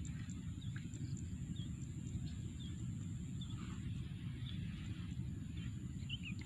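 Outdoor ambience at a rural pond: small birds chirping in short, scattered calls over a steady low rumble.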